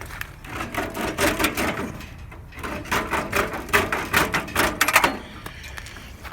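Quick, irregular clicks and scrapes of a hand tool worked against the metal parts of an air conditioner being dismantled, in two bursts with a short pause between them.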